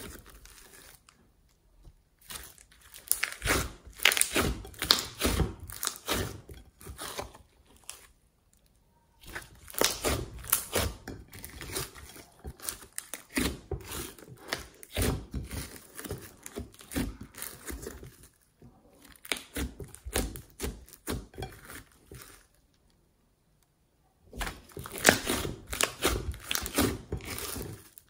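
Thick slime mixed with clay being kneaded, squeezed and pulled by hand in a glass bowl: dense runs of crackling, popping clicks from air pockets and the stretching mass, broken by a few short pauses, the longest near the end.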